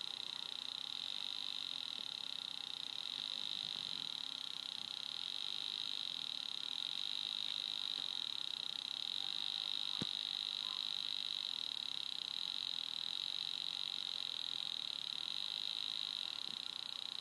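Pitch-adjusted recording of a homemade mechanical-TV camera's signal, from a phototransistor light-controlled oscillator, played back on a computer as an NBTV video signal. It is a steady high-pitched whine, with a single click about ten seconds in.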